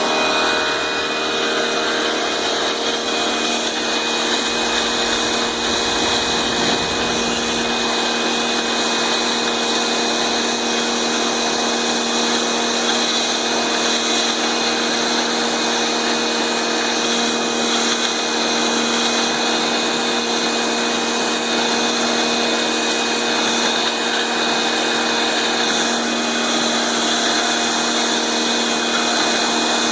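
Bosch AQT 35-12 electric pressure washer running steadily, a constant motor and pump whine over the hiss of the water spray.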